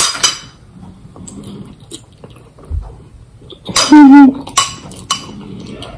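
A metal spoon scraping and clinking against a small stainless steel bowl while someone eats from it, with sharp clinks at the start and around five seconds in. A loud, short, wavering pitched sound about four seconds in, lasting about half a second.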